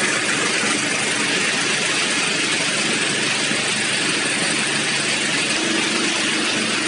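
Wheat combine harvester's engine idling steadily with its newly fitted air conditioner switched on for refrigerant charging, a steady hiss over the engine hum.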